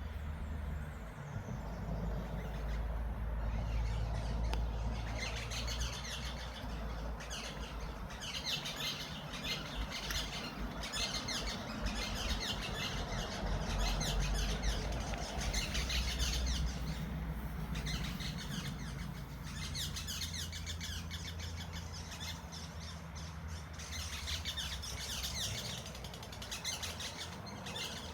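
Wild birds chirping and calling in a dense, continuous chorus that thins out for a while past the middle and picks up again near the end, over a low rumble.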